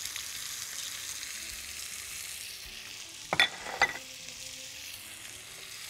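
Boiled potatoes sizzling steadily in butter and oil in a frying pan over high heat. Two brief clinks come about half a second apart, a little past halfway.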